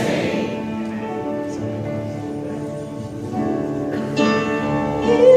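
Worship band music with guitar, playing held chords that change a few times, between the spoken prayer and the congregation's song.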